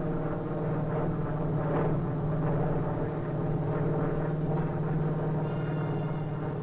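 Douglas AD-1 Skyraider's radial piston engine and propeller droning steadily in flight. Music begins to come in near the end.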